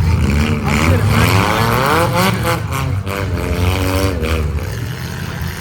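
Vehicle engines running and revving, their pitch rising and falling repeatedly over a steady low rumble.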